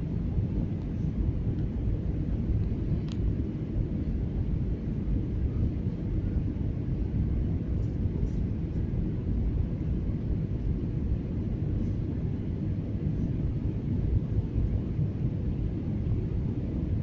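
Steady low rumble of a jet airliner's engines and airflow, heard inside the passenger cabin, with a single faint click about three seconds in.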